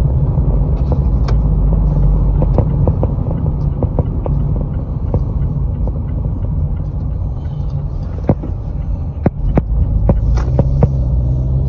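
A car being driven, heard from inside: a steady low rumble of road and engine noise, with scattered short clicks and knocks.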